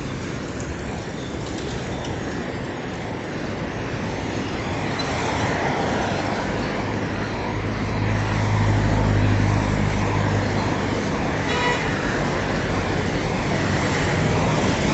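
Road traffic passing along a city street, growing louder, with a vehicle engine's low drone strongest about eight to ten seconds in. A short horn beep sounds near the end.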